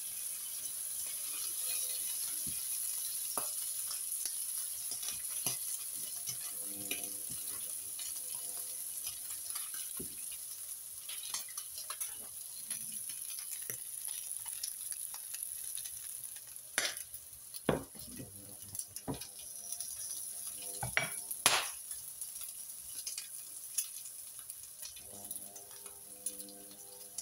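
Bacon sizzling steadily in a frying pan, with wooden spatulas scraping and turning the strips. Several sharp knocks of pan and utensils come in the second half.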